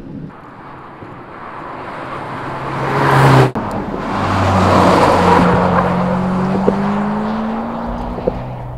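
Hyundai IONIQ 5 N driving hard past the camera, with tyre noise and a low engine-like drone. The first pass builds and cuts off abruptly about halfway through. A second pass follows, its drone slowly rising in pitch before it fades away near the end.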